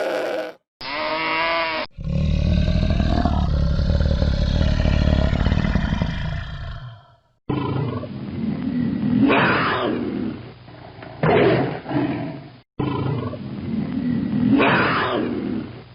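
A run of separate animal sound effects cut one after another: a short pitched bleating call, then a deep roar lasting about five seconds, then two clips of repeated growling roars.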